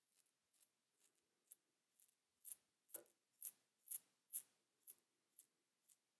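Manscaped The Plow 2.0 safety razor with a Wilkinson Sword Classic blade scraping through lathered stubble on the upper lip in short, quick strokes, about two a second, loudest around the middle.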